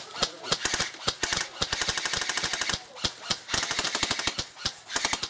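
Airsoft guns firing: spaced single shots with two rapid full-auto bursts, one from about a second and a half in and another around three and a half seconds in.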